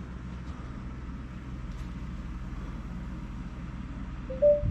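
RV's 48V DC air conditioner running with its compressor on, a steady low hum. A short, slightly rising tone sounds briefly near the end.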